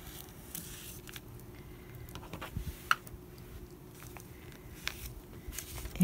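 Faint rustling and scattered light clicks of paper pattern pieces being handled and shifted on fabric, with one sharper click about three seconds in.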